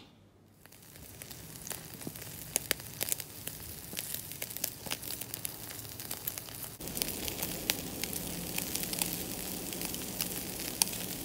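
Meat sizzling on a wire mesh grill over glowing charcoal, with frequent sharp crackles and pops. The sizzle gets louder about seven seconds in.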